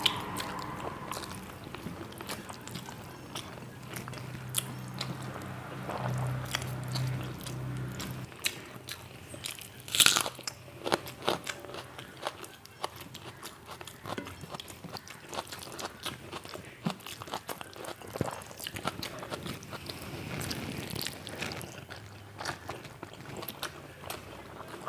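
Close-miked eating: a person biting and chewing crunchy fried food, with many sharp crunches and one loud crunch about ten seconds in.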